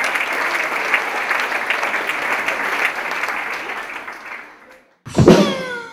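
Audience applauding, fading out about four and a half seconds in. About five seconds in, a sudden loud sound effect with a pitch that glides steadily downward.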